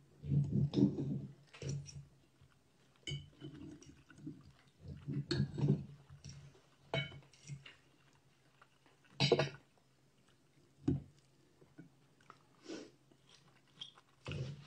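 Chewing and the knife and fork working on a ceramic plate while steak is cut and eaten: irregular bursts of mouth noise with a few sharp clinks of cutlery, several seconds apart.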